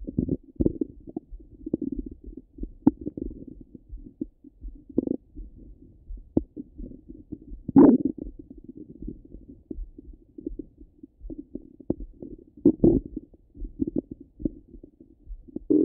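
Stomach gurgling heard through a Littmann stethoscope: an unbroken run of low, irregular gurgles and short pops, with louder gurgles about eight seconds in and again near thirteen seconds.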